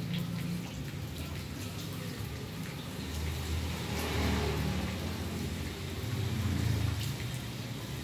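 Zippo lighter's steel insert handled and slid in its case: a soft metal scraping rush about four seconds in, with a few faint clicks over a low rumble.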